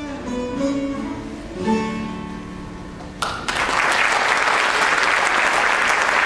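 Bağlama (Turkish long-necked lute) plucking the closing phrase of an Azeri dance tune, its last note ringing and fading. About three seconds in, audience applause breaks out suddenly and continues steadily.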